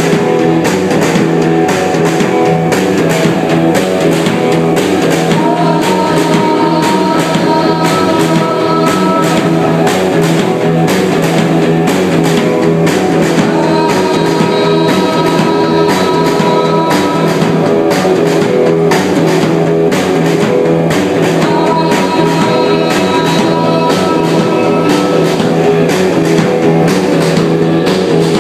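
A live rock band playing loudly: drum kit, electric guitar and bass guitar together, with a held high note that returns about every eight seconds.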